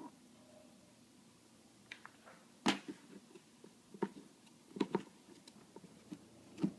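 Handling noise from an old camera case and its accessories: a few sharp clicks and knocks, the loudest about two and a half seconds in, a close pair near five seconds and another near the end.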